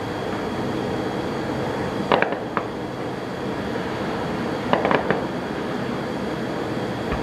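Fireworks going off: two quick clusters of sharp cracks and pops, about two seconds in and again about five seconds in, over a steady background noise.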